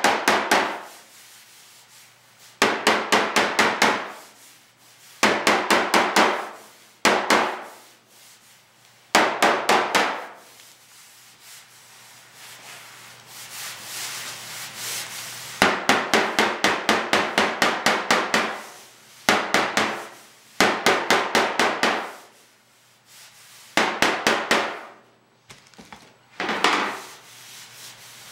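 A mallet tapping out a dent in a Citroën DS trunk lid: runs of quick, light, even taps, about six a second, each run lasting a second or two, with short pauses between about ten runs.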